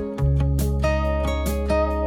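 Background music: acoustic guitar strummed in a steady rhythm over a sustained bass, with no singing.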